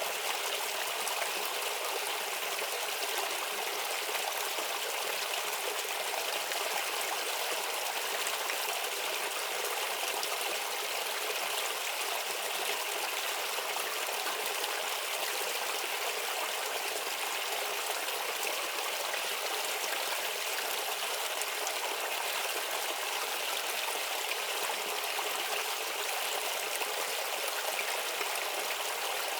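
A small stream babbling and trickling steadily over stones, an even rush of water with no pauses.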